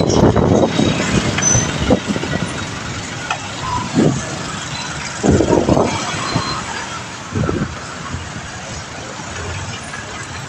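Busy street traffic heard from a moving bicycle: engines of motorcycles, cars and trucks running as a steady noise, with three brief louder swells in the middle.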